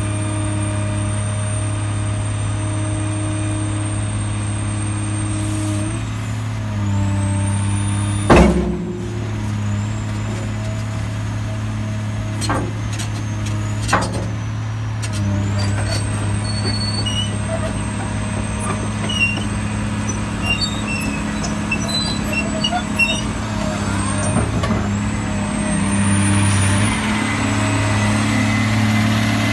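Caterpillar 365B L excavator's diesel engine running steadily, its note shifting a few times. A sharp knock about eight seconds in and two lighter clicks a few seconds later, with a rushing noise building near the end.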